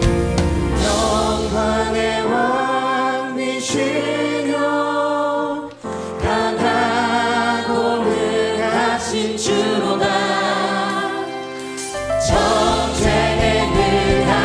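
A contemporary worship band with a group of singers performing a praise song. The bass and drums drop away for a quieter sung stretch, and the full band comes back in near the end.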